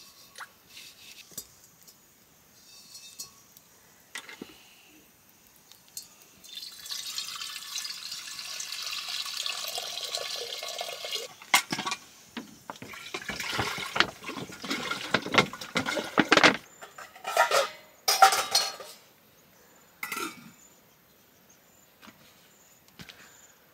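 Water poured into a vessel for several seconds, then sloshing and splashing with clattering of pots or dishes as they are rinsed, ending in a few sharp clinks.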